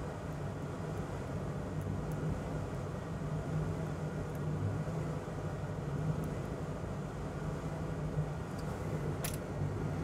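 A steady low machine hum, like a bench fan, with one short click about nine seconds in.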